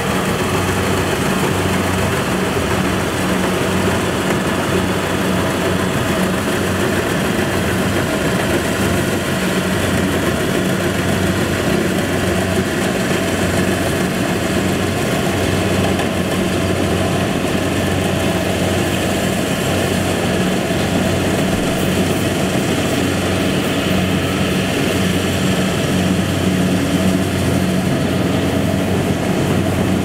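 Kubota DC-70 rice combine harvester running steadily under its diesel engine, an even, unbroken engine drone.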